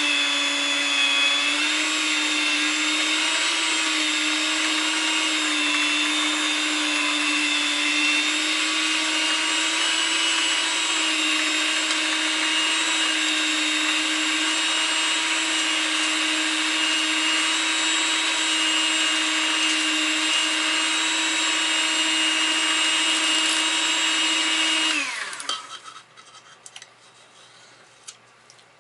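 Electric mixer with beaters running steadily, creaming butter, sugars and peanut butter into cookie dough, with a steady motor whine. About 25 seconds in it is switched off and winds down with a falling pitch.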